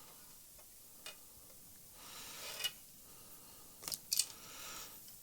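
Faint handling noises as elastic is pulled through a carbon fishing pole section: a few soft clicks and a light rustle.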